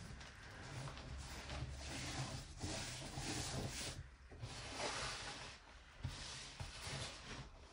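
Loose gym chalk powder rubbed, sifted through fingers and swept by hands, giving a soft rustling hiss in several swells. It dips briefly about four seconds in, and a few light taps come near the end as the hands pat and press the powder.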